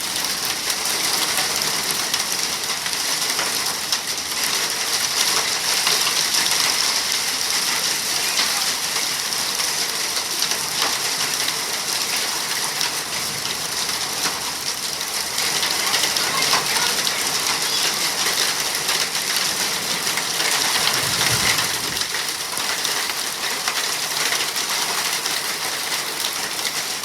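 Hailstorm: a steady downpour of rain and hail, a dense hiss peppered with countless small, hard clicks of hailstones hitting surfaces.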